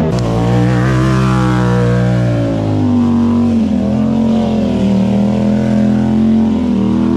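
Motorcycle engine held at high revs, its pitch wavering up and down with a dip around the middle of the stretch.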